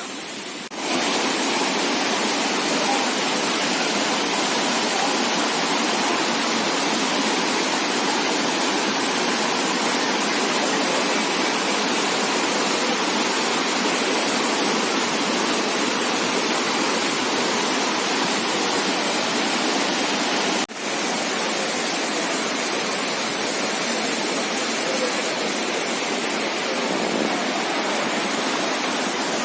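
Waterfall: a steady rush of falling water that gets louder about a second in and drops out for a moment a little over two-thirds of the way through.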